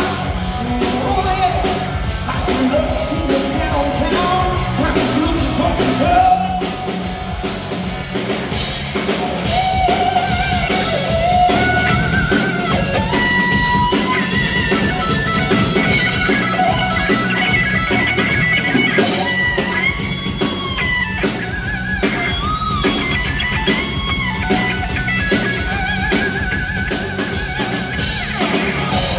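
Live rock band playing: electric guitar and drum kit with a man singing.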